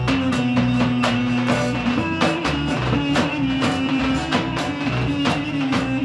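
Roman havası dance music with a steady, fast drum beat under a melody of held notes that steps up and down.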